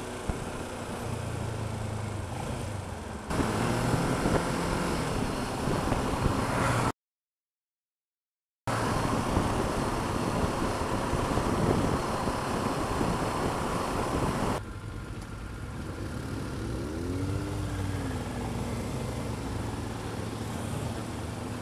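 Riding noise from a Kawasaki ER-6f parallel-twin motorcycle in traffic: the engine running steadily under wind and road noise. The sound changes abruptly about three and fifteen seconds in, and drops to silence for about two seconds around seven seconds in.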